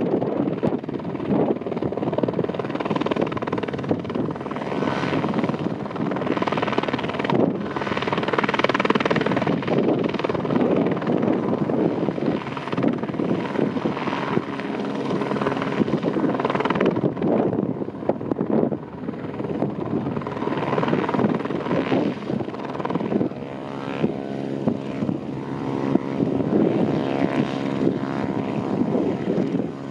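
Airbus AS350 Squirrel single-turbine helicopter hovering close by: its main rotor beats steadily over the engine's running noise, with a pitched hum standing out more in the second half.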